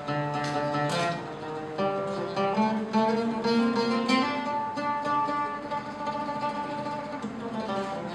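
Instrumental music: a melody on a plucked string instrument, note by note, with some notes held for a few seconds midway.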